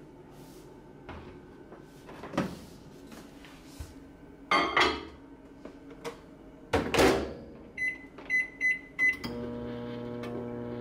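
Panasonic microwave oven: the door is opened and shut with loud clacks, four short keypad beeps follow, and about nine seconds in the oven starts running with a steady hum.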